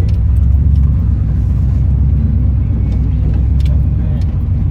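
First-generation Dodge pickup's engine running steadily at low speed, a low drone heard from inside the cab as the truck wades through deep water.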